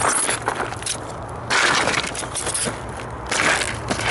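Sneakers stepping on a model car's cardboard box and plastic packaging over gravel. The cardboard and plastic crunch and crackle in several separate bursts, the loudest about a second and a half in.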